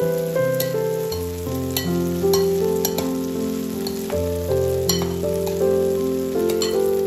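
Background music with a melody over a bass line, carried over the sizzle and scattered crackles of grated-zucchini pancakes frying in oil in a stainless-steel pan.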